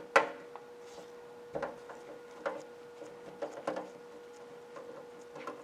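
Scattered light clicks and metallic knocks as sheet-metal screws are backed out of a dust collector's sheet-metal housing with a hand tool, with a faint steady hum underneath.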